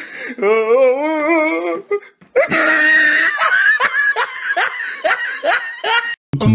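Laughter: a single long, wavering laugh, then after a short pause about four seconds of many overlapping high-pitched giggles, which stop abruptly near the end.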